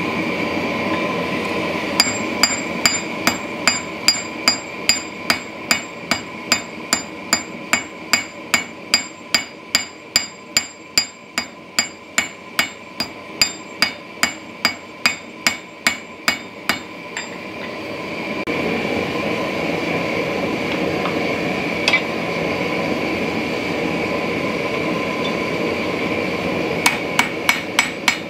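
Diagonal cross-peen hammer blows on a hot Damascus steel billet on an anvil, about three a second, each ringing sharply: the billet is being drawn out longer. Roughly midway the blows stop for about ten seconds and a steady forge hiss is left, then the hammering starts again near the end.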